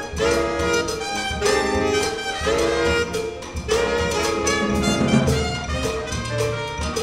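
Jazz big band playing an Afro-Cuban arrangement: saxophones and brass sound repeated held chords over drum kit and cymbals, with a trumpet playing out front.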